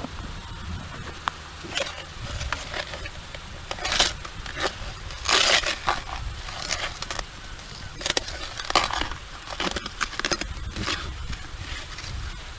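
Digging into wet beach sand and clay: a series of irregular crunching scrapes, the loudest about four and five seconds in, with more near the end.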